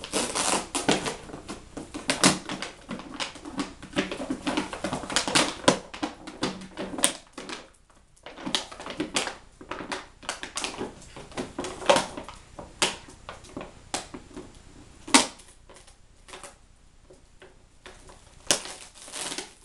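A dog chewing and tearing at a plastic bottle: the plastic crackles and crinkles in a rapid, irregular clatter of clicks. The clicks are dense at first and grow sparser after about eight seconds.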